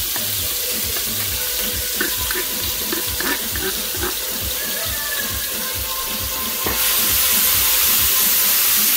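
Chopped onion, tomato and seasonings sizzling in hot oil in a pot, with the light knocks and scrapes of a wooden spoon stirring them. The sizzle gets louder about two-thirds of the way in.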